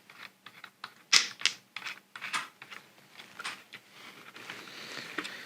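Irregular light clicks and taps of the small parts of a hard disk drive being handled during its teardown, the sharpest a little over a second in.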